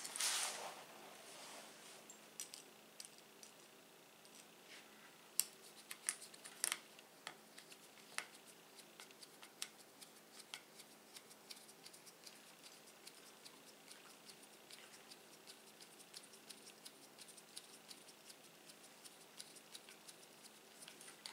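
A small hand screwdriver driving a tiny screw to fix a limit switch onto a 3D-printer frame plate, with faint scattered clicks and ticks of the tool and small parts being handled. A brief scuff of handling at the start.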